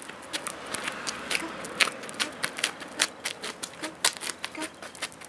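Quick, irregular clicks and taps, several a second: a small dog's claws and a person's clogs stepping on patio paving.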